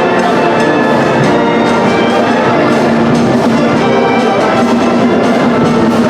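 Music with brass instruments over a steady percussive beat.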